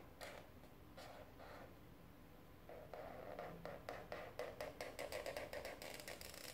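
Black marker pen drawing on paper: faint scratching strokes of the tip, then a quick run of small ticks in the second half.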